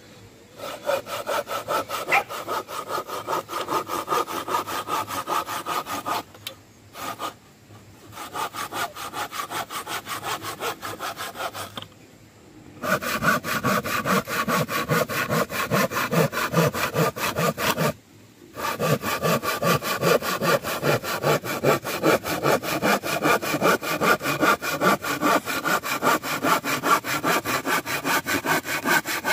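Hand saw cutting through wood in quick, even back-and-forth strokes, stopping briefly three times before carrying on.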